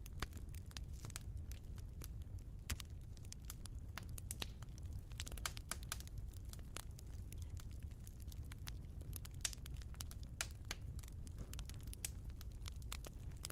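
Wood fire crackling in a fireplace: irregular sharp snaps, several a second at times, over a low steady rumble.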